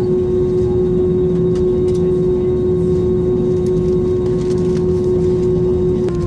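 Airbus A320 cabin noise while taxiing: jet engines and cabin air making a steady rumble with a constant whine over it. Just before the end the sound drops a little and a higher tone joins.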